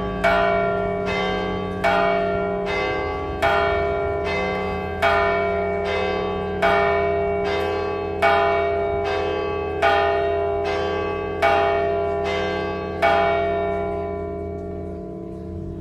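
Church bell rung in an even series of strokes a little under a second apart, every other stroke louder, each ringing on into the next. The strokes stop about 13 seconds in and the last one rings out and fades. This is the parish's second call to Mass.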